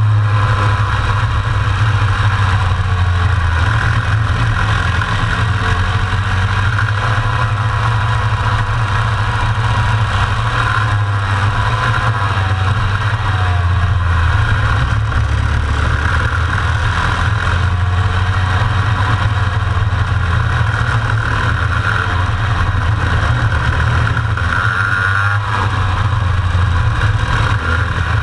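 Racing kart's two-stroke engine at full race pace, heard onboard: a loud, continuous engine note that drops and climbs in pitch several times as the kart brakes and accelerates through the corners.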